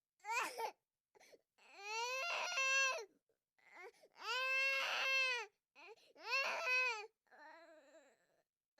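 Infant crying in a series of wails with short silent breaths between: a short cry, then three long drawn-out wails, and a quieter, weaker cry near the end.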